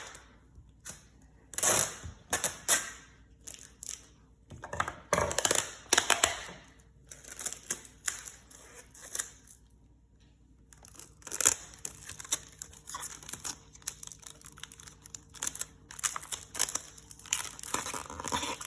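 Adhesive tape being pulled off and pressed around the joined necks of two plastic bottles: irregular ripping and crinkling of tape and plastic, with a short pause about halfway through.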